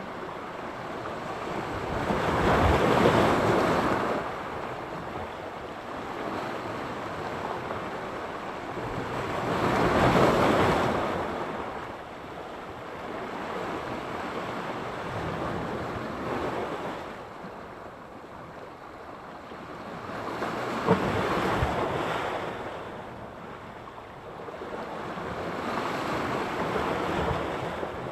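Sea surf: waves breaking on the shore and washing back, four times, each rush swelling over a couple of seconds and then fading.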